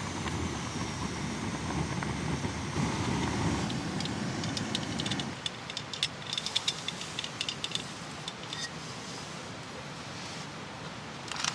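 Camping gas stove burner running steadily under a steaming pan of pasta, which drops away suddenly about five seconds in. It is followed by a run of light metallic clinks and ticks from the cookware.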